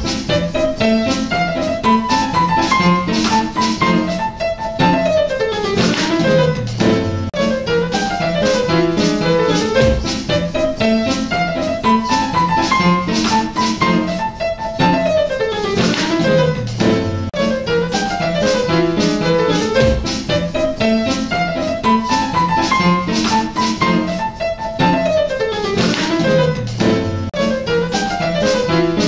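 Upright piano and drum kit playing together, piano notes over cymbal and drum hits. The same ten-second passage plays three times in a row.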